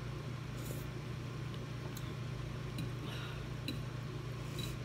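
Eating ramen noodles with a metal fork from a plate: a few short slurps and light clicks of the fork, over a steady low hum.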